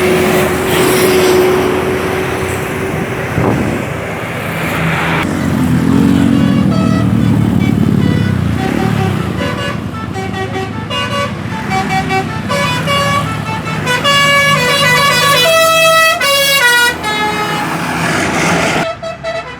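Bus 'telolet basuri' multi-tone melody horn playing a tune in quick stepped notes, over vehicle engine and road noise. The notes begin a few seconds in, come in faster runs near the end, then stop.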